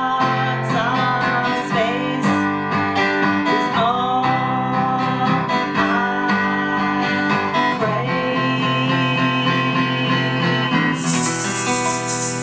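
Live acoustic guitar strumming chords under a woman's singing voice, with long held notes that waver in pitch. Near the end a shaken percussion rattle joins in.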